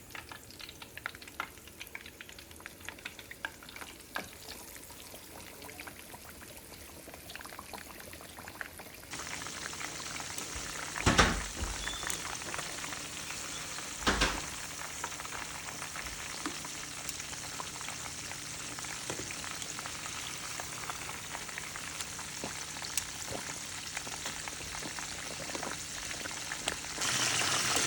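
Flour-coated, battered chicken thighs deep-frying in very hot oil: a steady sizzle with small crackles, which turns louder and denser partway through. Two dull knocks stand out partway through.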